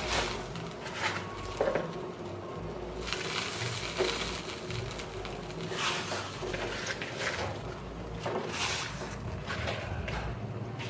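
Fresh cabbage-sprout leaves rustling and splashing as they are dropped by the handful into a steel pot of water on a gas stove, in several short bursts over a low steady hum.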